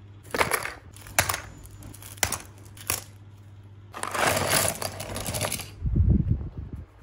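Acrylic keychains clicking against each other a few times, then a long clattering rush as a boxful of them is tipped out onto a cutting mat, followed by a dull thump near the end.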